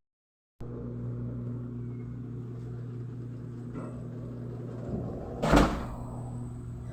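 Consul 12 kg washing machine running with a steady motor hum, which comes in abruptly after a split second of dead silence. About five and a half seconds in there is a single loud thump.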